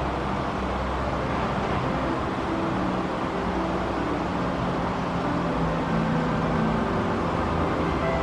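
Steady rush of flowing river water with background music over it.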